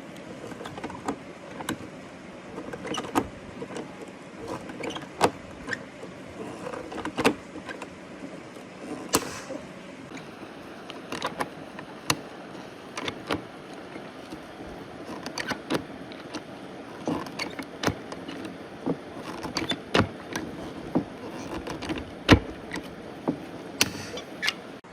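Irregular sharp knocks and clicks, about one or two a second and uneven in strength, over a steady background hiss.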